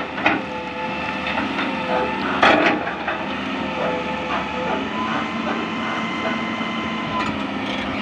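Hitachi EX200-1 hydraulic excavator working, its diesel engine running under load with the hydraulics whining. Its bucket scrapes and clatters against broken rock, loudest in a short burst about two and a half seconds in.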